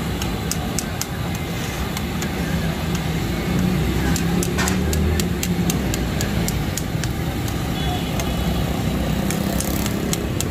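Long metal spatula clicking and scraping against a large tawa griddle as chicken cooks on it, with many sharp, irregular clicks. A steady low rumble of street traffic runs underneath.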